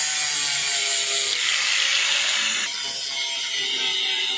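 Handheld grinder with an abrasive disc grinding over a car's front fender, a steady loud abrasive whir as it strips thick body filler and paint down toward bare metal. The tone shifts slightly a couple of times.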